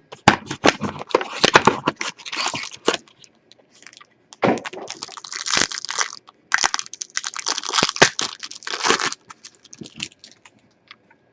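Plastic trading card pack wrapper being torn open and crinkled by hand, with sharp crackles and clicks in several bursts, then mostly quiet near the end.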